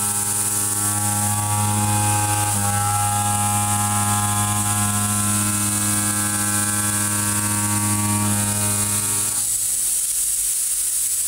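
Kennametal Mill 4-12 KT tangential shoulder mill on a CNC machining-centre spindle, roughing 4140 steel: a steady pitched hum with a high hiss over it. Most of the pitched part drops away about two seconds before the end as the cutter leaves the block.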